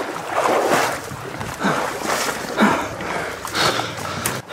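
Legs wading through a shallow stream, water splashing and sloshing in uneven surges with each stride.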